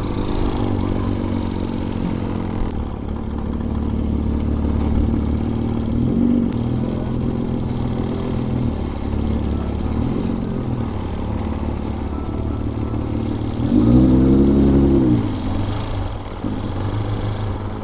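Vitacci Bashan BSR Raven 250 motorcycle engine running under way, its note stepping up and down as it is ridden. About fourteen seconds in it revs up and falls back.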